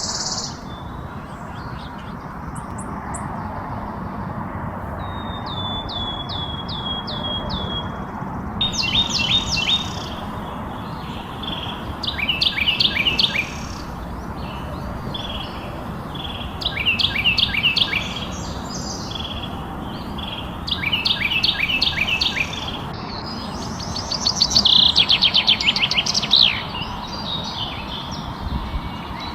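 Wild bird singing: short phrases of rapid, falling whistled notes repeated every three to four seconds, the loudest and longest phrase near the end, over a steady background hiss.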